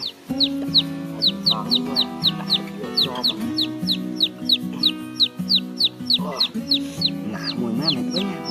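A chick peeping over and over, short high falling peeps about three to four a second, over background music with sustained notes.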